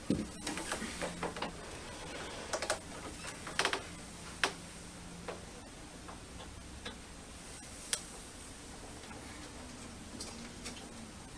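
Irregular small clicks and taps, a cluster in the first few seconds and a single sharp click about eight seconds in, from hands working at the TV to screw the cable in.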